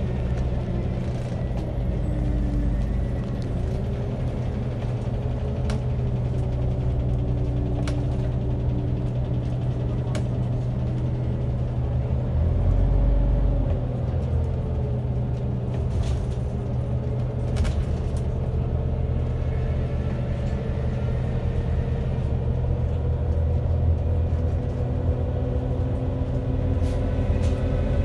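Scania OmniCity single-deck bus heard from inside the passenger cabin while under way: a steady low engine drone whose pitch rises and falls as the bus speeds up and slows. A few light clicks and rattles come through.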